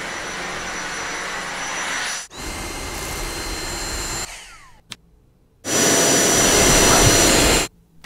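Dyson cordless handheld vacuum running, a steady rushing noise with a thin high whine, in short cut-together shots. It breaks off about two seconds in, fades away in the middle, then returns louder for about two seconds before stopping abruptly.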